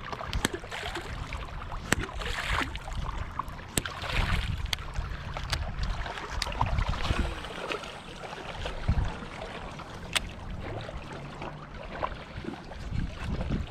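Wind rumbling on the microphone, with water lapping and a scattering of sharp clicks and knocks.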